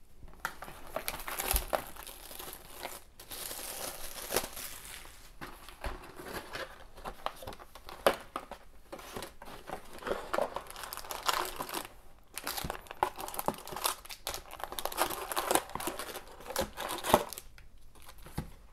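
Plastic wrapping crinkling and tearing as a cardboard box of trading cards is unwrapped and opened, then foil-wrapped card packs rustling and crinkling as they are lifted out and stacked.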